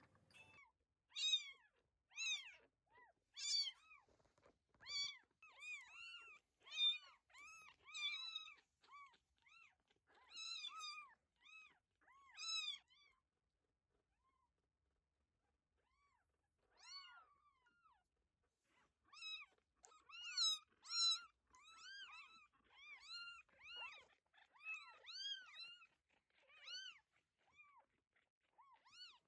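Very young kitten mewing: a long string of short, thin, high-pitched mews, about two a second, with a pause of about three seconds midway.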